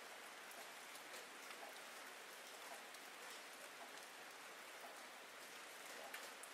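Steady rain falling, a faint even hiss with scattered sharper drop ticks.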